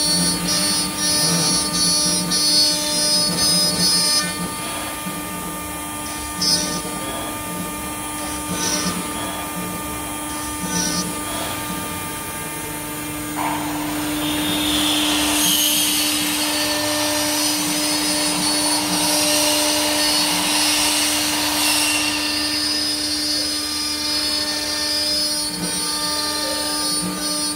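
CNC router spindle running with a steady whine while its small bit cuts grooves into an MDF board. About halfway through, the cutting noise turns louder and hissier for several seconds, then settles back.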